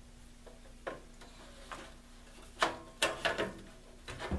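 Scattered clicks and knocks as a heavy part is rocked and worked loose from inside a Kenwood TS-940 transceiver, with a cluster of sharper knocks about two and a half to three and a half seconds in and another near the end.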